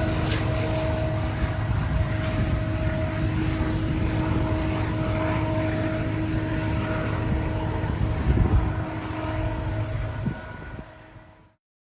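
A train rumbling with a steady droning engine tone, which fades away to silence near the end.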